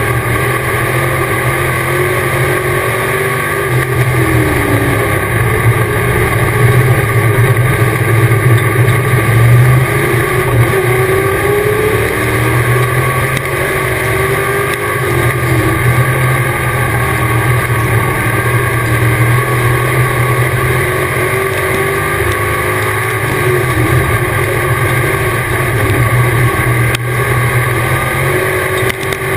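Dirt-track race car's engine at racing speed, heard from inside the cockpit. It runs loud and continuously, its pitch rising and falling every few seconds as the car goes around the oval.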